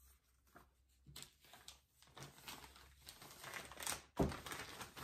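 Clear plastic bag crinkling and rustling as it is picked up and handled, with a single thump about four seconds in.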